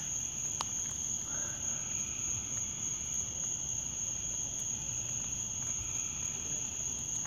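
Steady, high-pitched chorus of night insects droning without a break, with a single faint click about half a second in.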